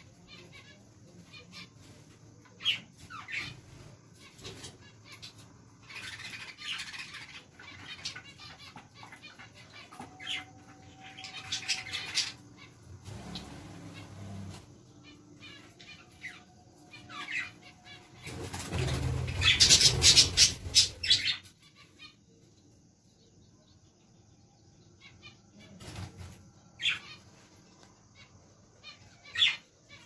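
Pet budgerigars chirping in short scattered calls, with several flurries of wing flapping. The longest and loudest flurry comes about two-thirds of the way through.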